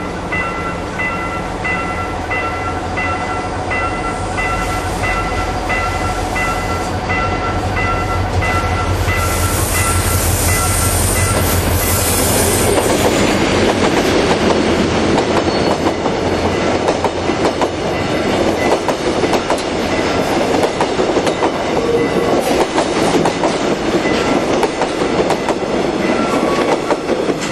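Level-crossing warning bell sounding a steady string of electronic chimes as a diesel train approaches, its low engine drone growing louder. From about twelve seconds in, the train passes with loud wheel clatter over the rail joints, and the bell keeps sounding underneath.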